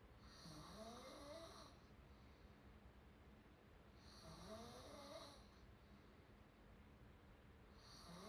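Faint open-mouthed snoring, one snore about every four seconds, each rising in pitch: two full snores and a third starting near the end.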